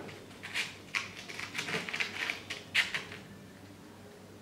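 Cardboard safety-match box being handled: the tray slid open and a wooden match picked out, a string of small scrapes and rattles of the matches in the box, the clearest near three seconds in.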